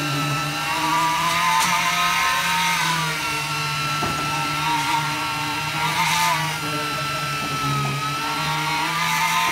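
Concrete poker vibrator running steadily while its needle is worked through freshly poured slab concrete: a continuous motor hum with a higher whine that sags briefly in pitch a couple of times.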